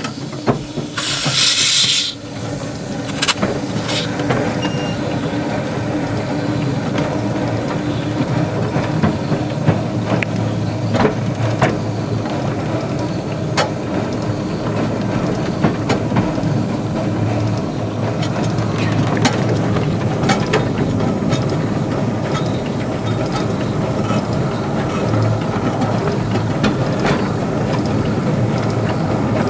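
10¼-inch gauge steam locomotive and its carriages running along the line, with a short burst of steam hiss about a second in and frequent sharp clicks of the wheels over the rail joints.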